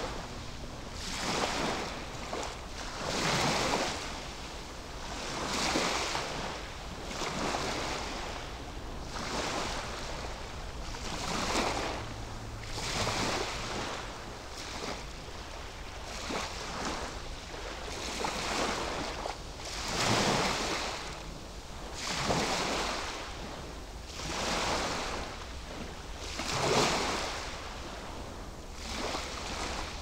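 Small waves lapping and breaking on a sandy beach, a hiss of surf swelling and fading about every two seconds, with a steady low rumble underneath.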